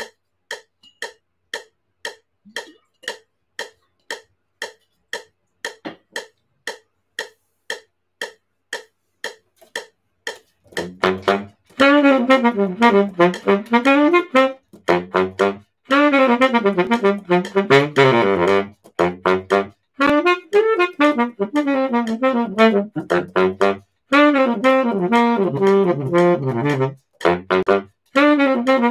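Metronome clicking about twice a second; about ten seconds in a baritone saxophone comes in over it, playing low, bouncing riffs with a few short breaks.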